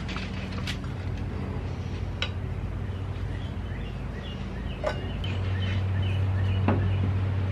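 A steady low hum that grows louder about five seconds in, with a few sharp taps and clicks as a metal paint can lid and a clear plastic storage box are handled. A run of faint, short, high chirps comes in the middle.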